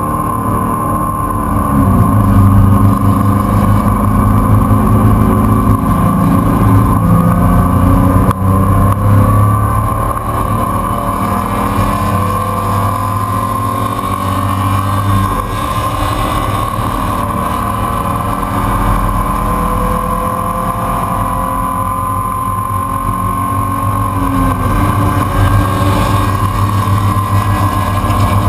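Race car engine heard from inside the open, stripped cockpit, running hard on track under sustained load, with a steady high whine over it. The revs climb shortly after the start and again near the end.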